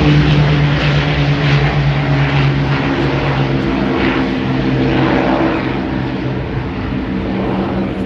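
Avro Lancaster bomber's four Rolls-Royce Merlin piston engines droning steadily in a low fly-past. The sound is loudest at first and fades gradually as the aircraft draws away.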